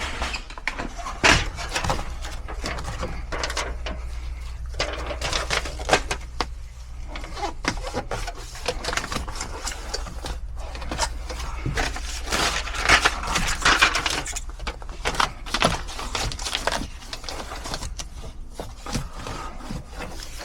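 Scattered knocks, clicks and clatter of sheet-metal ductwork being handled and fastened, with a denser rattling stretch a little past the middle, over a steady low hum.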